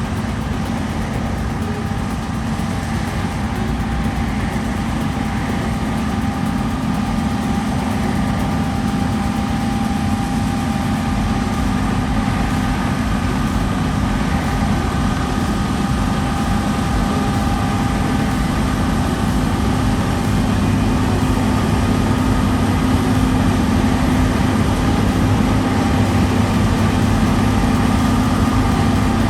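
Heavy farm diesel machinery running steadily: a deep engine drone with several steady whining tones above it, growing slowly louder.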